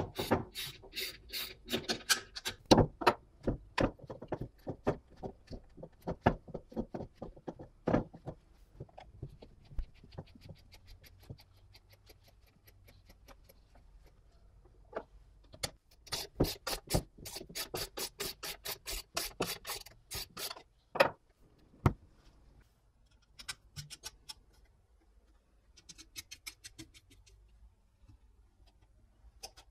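Ratcheting wrench clicking as nuts are tightened onto the bolts of a homemade welding magnet, in fast runs of clicks that stop and start.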